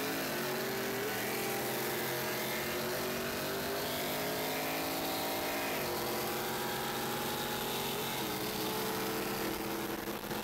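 Car engines at full throttle during a side-by-side run, the pitch climbing steadily and dropping sharply about six seconds in and again about eight seconds in as the car shifts up a gear, over wind and road noise.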